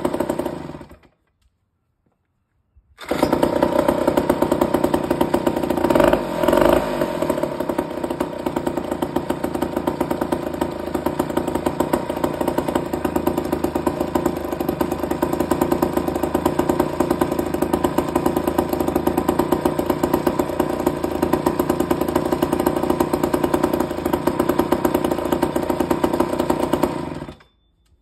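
Vintage Remington Bantam 82cc two-stroke chainsaw engine running steadily with a fast, even firing beat, briefly louder about six seconds in. The sound drops out to total silence for about two seconds a second in, and again just before the end.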